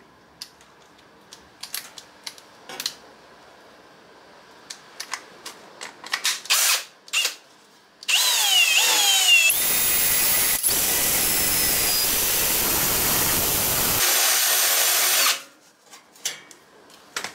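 Cordless drill spinning a carbide burr, grinding a notch into the edge of a sheet-metal foot plate. About eight seconds in it starts with a whine that sweeps up and down in pitch, then grinds loudly and steadily for about six seconds before stopping suddenly. Before that, only a few light knocks and clicks.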